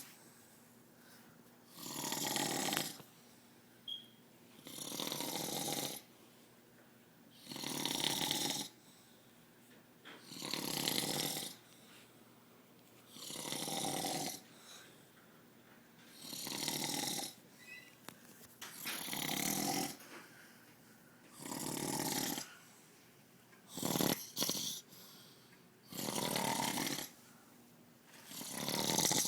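A man snoring in his sleep, one snore about every three seconds with quiet breathing between. About four-fifths of the way in, two shorter snores come close together.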